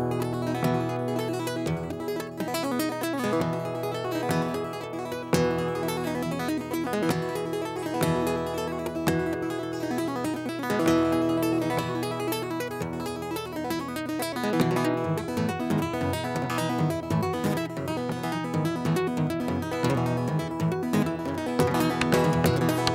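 Solo acoustic guitar played live, an instrumental passage of strummed and plucked chords with frequent sharp attacks.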